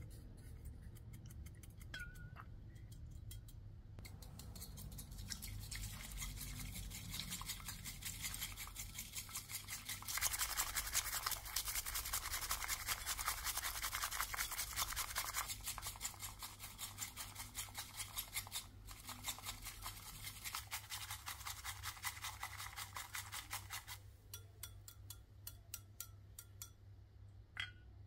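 Bamboo matcha whisk beating tea in a bowl: fast, scratchy back-and-forth strokes that start about four seconds in, grow loudest in the middle and stop about four seconds before the end, with a few light strokes after.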